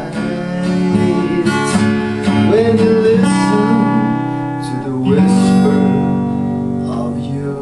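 Acoustic guitar strummed, its chords ringing on between strokes every second or so.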